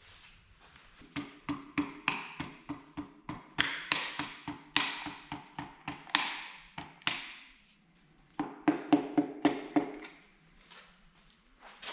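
A hammer tapping a piston, rings and all, down through a band-type ring compressor into a cylinder bore of an Oliver 1855 engine block. Each tap gives a short metallic ring. There is a long run of light taps, a pause about seven seconds in, then a quicker, louder cluster of taps.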